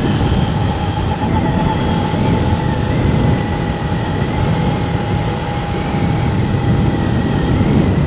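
Vehicle driving at a steady speed: a loud low rumble of engine and road noise with a steady high whine over it.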